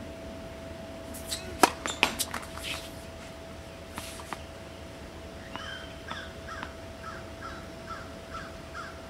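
A tennis ball bounced on a hard court, a cluster of sharp knocks about one and a half to two and a half seconds in and two fainter ones near four seconds. From about halfway, a bird calls in a regular series of short notes, two or three a second, over a steady faint hum.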